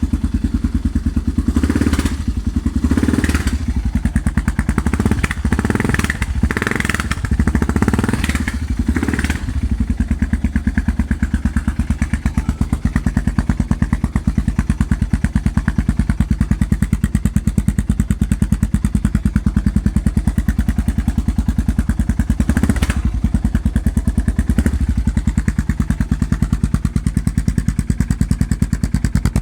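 Yamaha XT motorcycle engine idling through a GPR exhaust with the dB killer removed, giving a very loud, open exhaust note. The throttle is blipped several times in quick succession during the first ten seconds and twice more later on.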